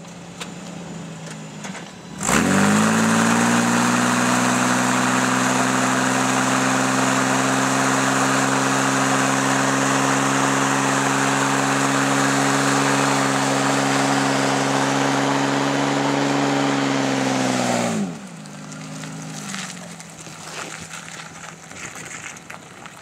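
Ford Explorer engine idling, then revving sharply about two seconds in and held at steady high revs for about sixteen seconds while the rear tyres spin on the pavement in a smoky burnout. The revs then drop back quickly to idle.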